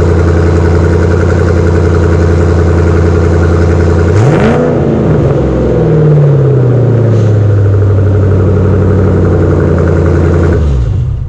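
Ford Mustang GT V8 idling loudly through a freshly fitted catless X-pipe exhaust. About four seconds in there is one sharp rev that slowly falls back to idle. The engine is shut off near the end.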